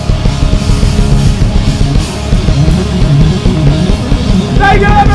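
Rock band playing live and loud, with electric guitars, bass and a full drum kit. A long held note comes in near the end.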